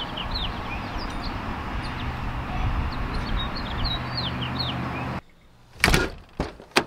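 Outdoor background noise with small birds chirping over and over, short falling chirps. About five seconds in it drops to quiet, broken by two sharp knocks or clicks close by.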